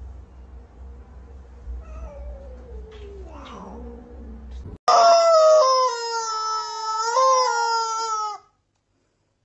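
Yellow rubber chicken squeeze toy squeezed, letting out one long, shrill, steady squawk of about three and a half seconds that starts suddenly about halfway in and stops sharply. Before it, only a faint low hum with a soft falling cry.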